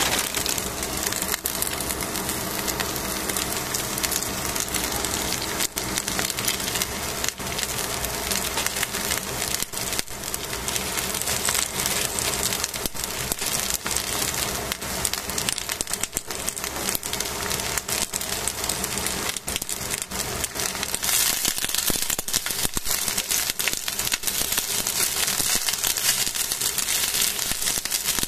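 Cut cabbage, onion, carrot, green pepper and shimeji mushrooms sizzling in a hot stainless steel pan, a steady dense crackle that grows brighter about 21 seconds in.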